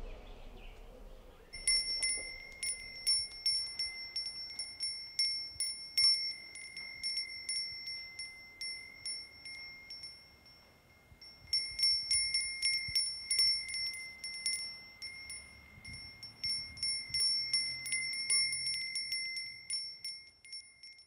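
A small high-pitched metal chime tinkling in quick, irregular strikes, all on the same note. It starts about a second and a half in, stops for about a second and a half near the middle, then resumes.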